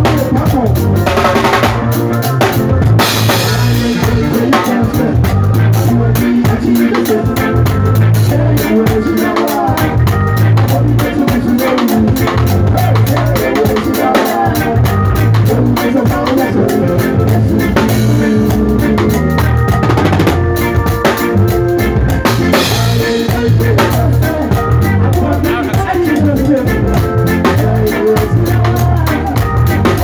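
Live band music driven by a drum kit played hard in a busy groove: snare, rimshots, bass drum and Meinl cymbals, with crashes a few times, over a steady low bass line.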